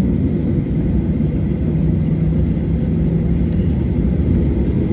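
Steady low rumble of a Boeing 737-800's CFM56 jet engines and airframe, even throughout, with a faint steady hum in the middle.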